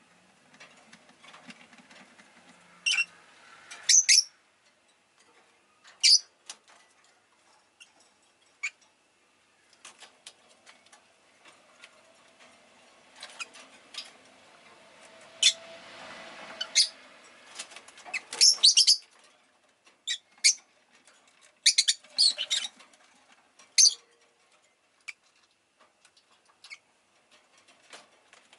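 Rosy-faced lovebird giving short, sharp, high-pitched chirps at irregular intervals, some in quick clusters of two or three.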